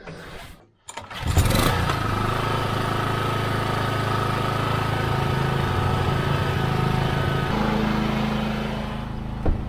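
Briggs & Stratton Vanguard 6 HP single-cylinder engine on a portable generator catching about a second in and then running steadily, its tone shifting once near the end. It is running on a makeshift cotton-mesh air filter that replaced a paper filter choked by oil from the valve cover breather, and it sounds all right now instead of running rough.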